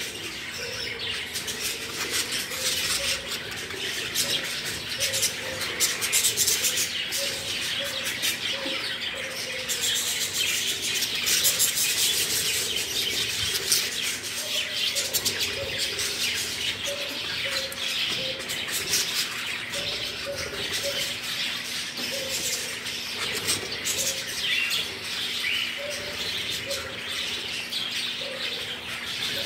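A flock of budgerigars chattering continuously: dense warbling and chirping with many short clicks, and a string of short lower notes repeating underneath.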